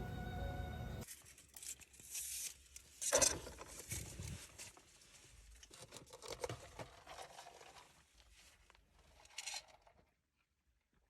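Background music that stops about a second in, followed by scattered, irregular rustling and crinkling, with a louder crackle about three seconds in.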